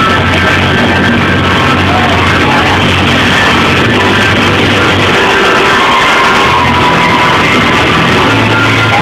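Loud band music with held bass notes and sustained higher tones, running steadily throughout.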